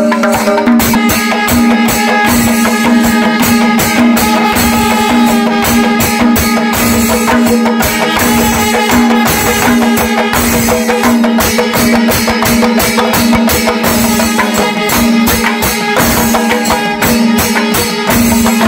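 Kerala temple percussion ensemble playing: hand-beaten thimila and maddalam drums in a fast, dense rhythm, with cymbal strokes, over a steady held horn note.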